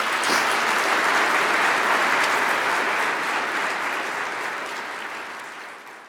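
Audience applauding steadily after the talk, fading out over the last couple of seconds.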